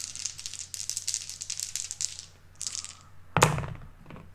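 Game dice rattling as they are shaken in a cupped hand, then thrown onto the table with a loud clatter about three seconds in, with a last small click just after.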